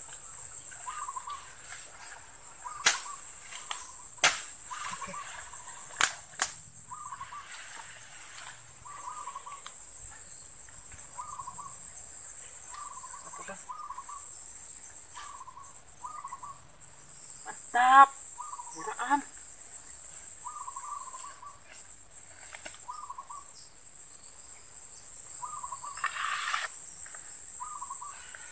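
Steady high-pitched drone of insects in the grass, with a short chirping call repeating every second or so. Four sharp clicks stand out in the first third, and a brief squeal comes about two-thirds through.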